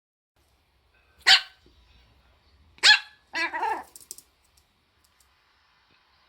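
Pomeranian barking and sneezing: two short, sharp sneeze-like bursts about a second and a half apart, the second followed at once by a longer pitched bark of about half a second.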